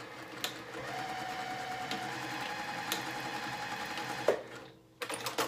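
Juki TL-2010Q straight-stitch sewing machine stitching fabric at a steady speed, its sound damped by a vibration-reducing mat. It stops with a sharp clunk about four seconds in, and a few short clicks follow near the end.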